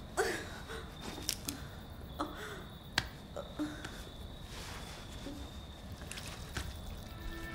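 A woman's short, faint groans and gasping breaths as she comes to and moves on the floor, with scattered sharp clicks and a faint steady high whine underneath. Music comes in right at the end.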